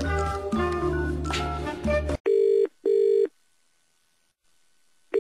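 Music cuts off abruptly about two seconds in. Then comes a British telephone ringing tone heard down the line: one double ring, two short beeps in quick succession, followed by a pause. The line is ringing while the call waits to be answered.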